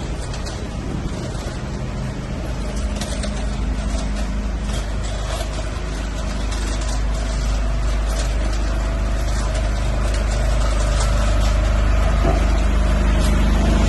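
A heavy vehicle's engine running with a steady low rumble, growing louder over the second half. Scattered short clatters sound in the first few seconds.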